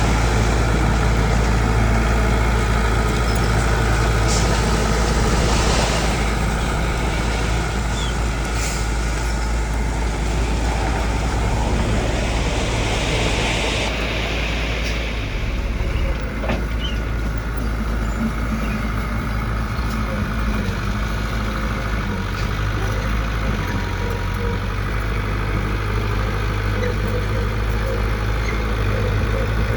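Diesel engine of heavy construction machinery running steadily at a low, even drone, with a hiss of a few seconds about halfway through.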